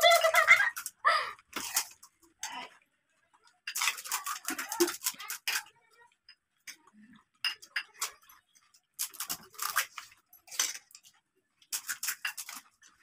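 Crisp pani puri shells being cracked open and filled with spoons from steel bowls: irregular crackles, crunches and light clinks of metal spoons on steel, coming in scattered clusters.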